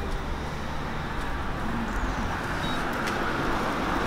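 Street ambience: a steady rumble of road traffic, with a rushing hiss that swells near the end.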